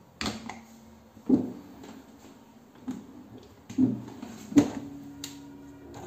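Hansa ZWM 406 WH dishwasher being handled: the plastic detergent dispenser lid on the stainless steel door clicks shut, followed by more knocks from the door and racks. There are about six sharp knocks in all, each with a short low ring.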